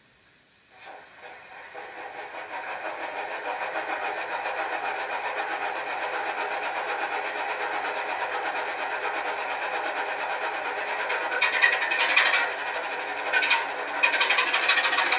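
Sound decoder in a model Class 27 diesel locomotive playing a recording of the real locomotive's Sulzer six-cylinder diesel starting up and building over a few seconds into a steady rhythmic idle, heard through the model's small speaker. From about eleven seconds in, several louder noisy bursts come over the engine.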